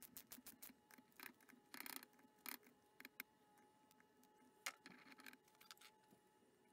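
Near silence with faint scattered clicks and a few short scrapes of metal vise parts being handled during reassembly, the loudest scrapes about two seconds in and near the middle, over a faint steady hum.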